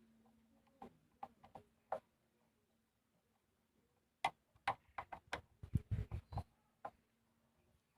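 Hand work on motorcycle parts: irregular light clicks and taps, with a dense run of louder clicks and low knocks from about four to six and a half seconds in.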